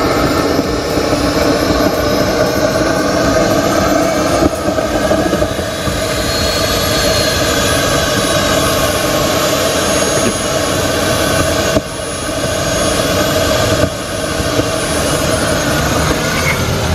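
Converted electric-hybrid Mazda RX-7 running with a loud, steady roar and a high whine that rises in pitch over the first few seconds.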